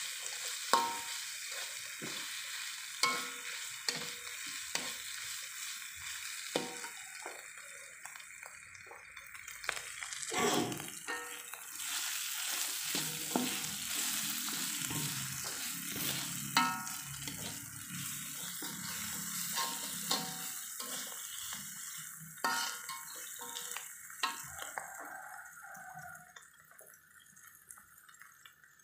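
Spice paste sizzling in hot oil in a wok while a metal spatula stirs and scrapes it, with frequent sharp clinks of the spatula against the pan. The sizzle dies down near the end.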